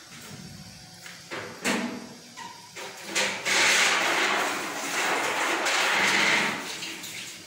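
A few knocks, then beef sizzling in hot oil in the pan. The hiss swells about three seconds in and eases near the end.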